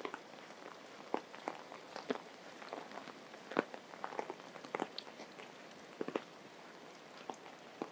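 Heavy tropical rain falling steadily, with irregular sharp taps scattered through it, several a second at times.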